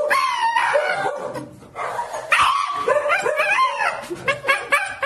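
A Shiba Inu screaming while held and restrained by vet staff: long wailing cries that glide up and down in pitch, then a run of quick, shorter yelps near the end.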